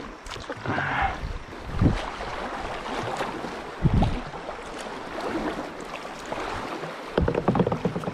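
River water rushing and splashing around a moving kayak, with a couple of low thumps.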